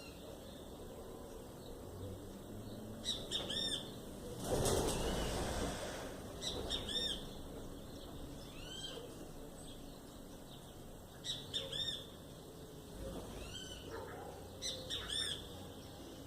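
Sabiá thrushes giving short, high, arched chirping calls in small clusters every few seconds, with a brief burst of rushing noise about four and a half seconds in.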